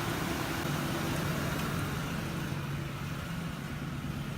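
2006 Ford E150 van engine idling steadily just after being started.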